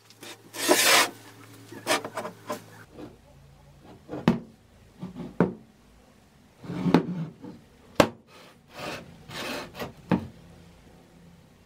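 A small 15 kg anvil being turned over and slid about on a wooden workbench: irregular rough scrapes of rusty metal on wood, with knocks as it is set down, the sharpest about eight seconds in.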